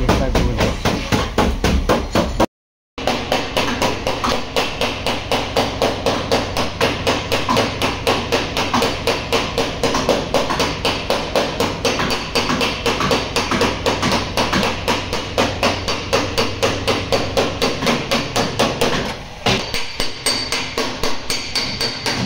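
Rapid, even hammer taps on the steel body panel of a Honda N-WGN, about four or five a second, as the dented wheel-arch edge is beaten out against a flat body spoon. The tapping breaks off for a moment about two and a half seconds in.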